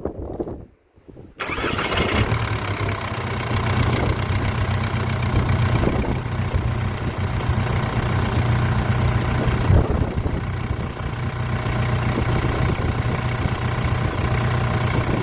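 Volkswagen Beetle TDI's diesel engine starting about a second in, then idling steadily on its freshly charged battery.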